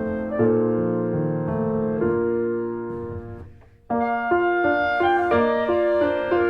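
Background piano music, gentle and melodic, fading out about three and a half seconds in and starting again a moment later.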